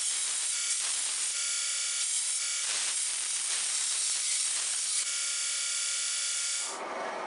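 Belt grinder running while the flat of a large curved steel blade is ground against its abrasive belt: a steady motor hum under a hiss that swells with each of several passes of the blade. Near the end it cuts to a lower, duller rumble.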